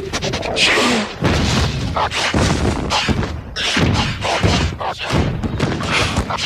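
Cartoon sound effects: a dense run of thumps and crashes over a noisy rush.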